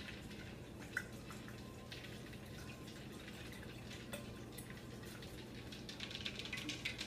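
Faint taps and clinks of a utensil against a container, sparse at first and a quicker run near the end, over a low steady hum.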